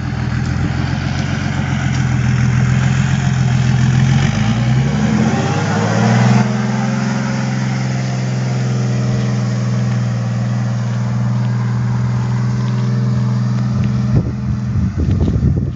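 Engine of a lifted off-road truck on oversized tractor tyres, running at a steady low speed, then revving up over about two seconds and holding a higher steady speed as the truck drives off. Near the end the engine sound drops away and a rough, uneven noise takes over.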